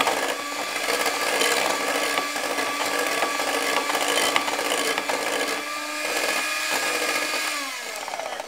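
Electric hand mixer running steadily, its beaters churning butter and agave syrup in a glass bowl to cream them. Near the end it is switched off and its whine falls as the motor spins down.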